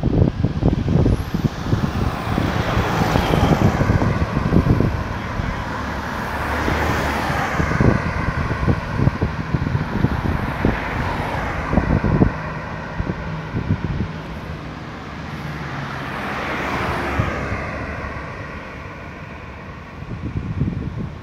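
Road traffic: several cars passing one after another, each swelling and fading, with wind rumbling on the microphone.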